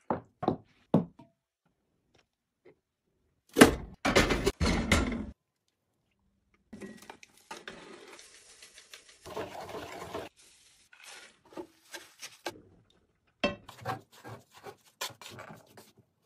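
Kitchen work sounds: a few knocks of a wooden jar and lid, a loud clatter about four seconds in, then a soft hiss with light scraping as melted butter is stirred with a wooden spoon in a metal pot, and near the end a run of taps and scraping as tsampa is mixed in a brass bowl.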